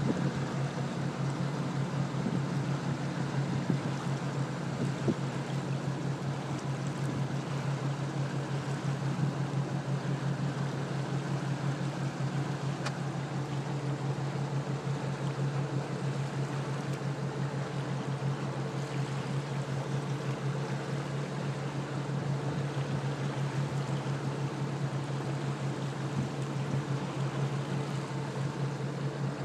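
Boat motor running steadily, a constant low hum that does not change in pitch, over an even wash of water noise.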